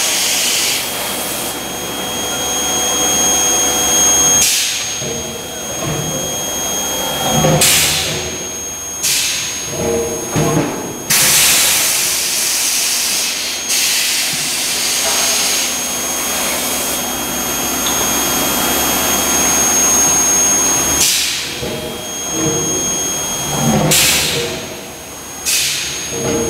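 Medium-frequency induction bar-heating forging machine at work: a thin, high-pitched whine that swells and fades, over repeated bursts of hissing.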